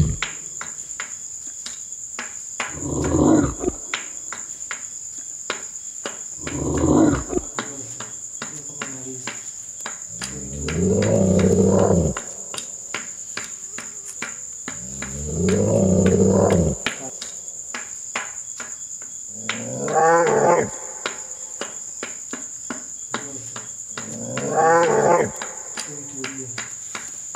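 A steady, shrill cricket trill with fast clicking, and over it a low, drawn-out, voice-like moan that comes six times, about every four to five seconds, in a horror film's soundtrack.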